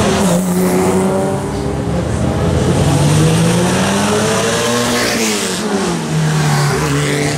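Historic sports and racing cars driving past one after another, their engines revving, the pitch climbing as each accelerates and dropping as it passes, with a falling note about five seconds in.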